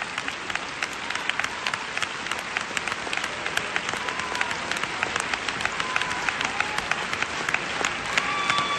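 Large arena audience applauding: dense, steady clapping from many hands. A held tone comes in near the end.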